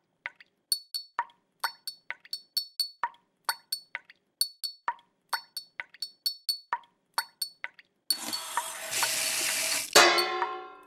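A steady run of sharp clinks, about three a second. From about eight seconds in comes a fizzing hiss, ending near the end in a louder burst with ringing tones.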